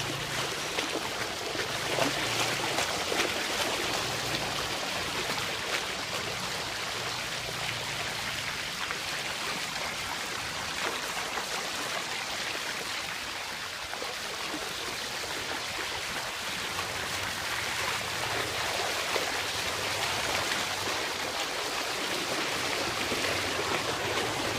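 Steady rush of flowing floodwater, with a faint low hum that comes and goes near the start and again in the last third.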